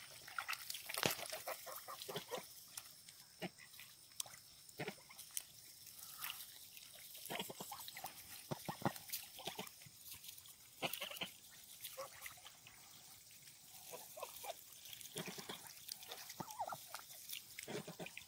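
Pekin ducks and domestic geese dabbling with their bills in shallow water at the pond's edge: many short, irregular wet splashes and bill clicks, with a few soft calls among them.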